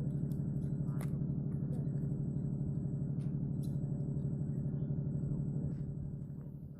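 An engine running steadily with a low hum and a fast, even pulsing beat, dying away near the end.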